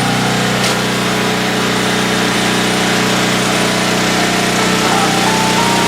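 Portable generator engine running steadily at a constant speed, a low even hum with storm wind and rain hissing over it.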